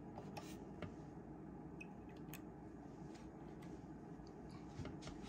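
Faint, irregular clicks of front-panel keys being pressed on a Hewlett-Packard RF signal generator as a new frequency is entered, over a low steady hum.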